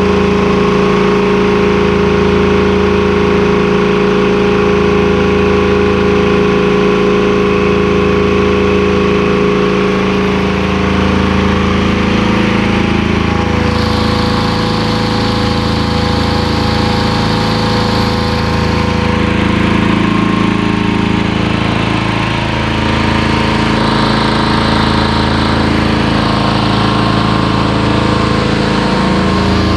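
Reconditioned Hamworthy V250 main air compressor running steadily under test, a loud continuous mechanical drone with a slow pulsing beat. A higher hiss joins for a few seconds about halfway through.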